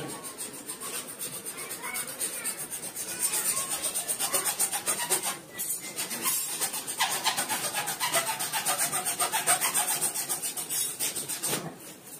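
Rapid, rhythmic rasping strokes of a hand tool worked back and forth against a hard surface, several strokes a second. There is a short break about five and a half seconds in, and the strokes stop shortly before the end.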